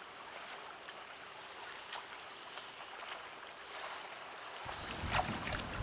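Faint ambience of open water at a dock: a soft even hiss with light lapping. Near the end a low rumble comes in along with a few light knocks.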